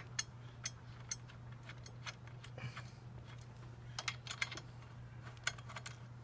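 Light, irregular metallic clicks and clinks of a bolt with its stainless steel washers and spacers being handled and lined up at the crash-bar bracket, ready to be started by hand, with a cluster of clicks about four seconds in and again near the end. A steady low hum runs underneath.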